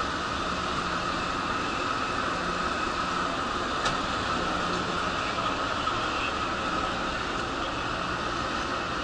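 Steady mechanical hum and rushing air noise with a faint low drone that comes and goes, and a single short click about four seconds in.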